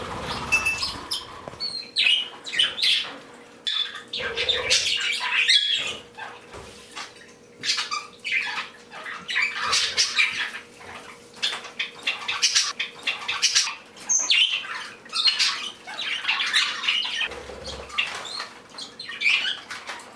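A flock of pet parakeets and other small cage birds chirping and squawking continually in many short, overlapping calls, with some wing flapping.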